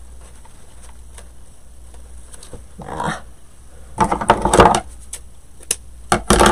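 Rustling and clattering as craft materials are handled on a worktable: a short rustle about three seconds in, a loud dense burst of crackling clicks about a second later, then a few sharp clicks near the end.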